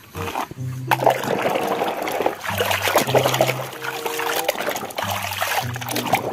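Muddy water in a basin splashing as a toy car is swished through it by hand.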